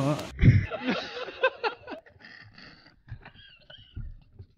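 A man laughing in short, squeaky giggles whose pitch rises and falls. The laughter is loudest in the first second or two, then trails off into faint scraps.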